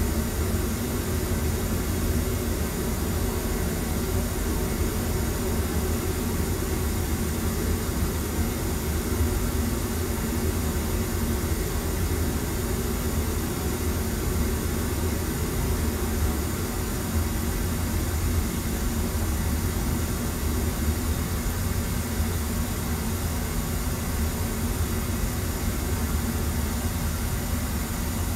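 Pink noise test signal played through the PA system for tuning the room's EQ: a steady, even hiss, heaviest in the bass.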